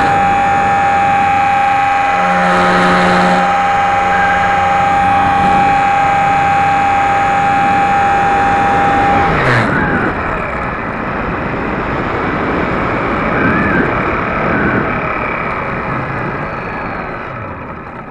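Onboard sound of the HobbyZone Super Cub's electric motor and propeller: a steady high whine at high throttle. About nine seconds in the pitch drops sharply, leaving a lower, wavering motor sound and air rushing past the airframe that slowly fades.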